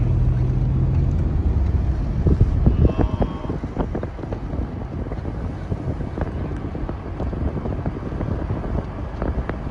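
A vehicle driving along a bumpy dirt track: a steady low engine hum, then about a second in a rough rumble with many short knocks and rattles from the ride. Wind buffets the microphone.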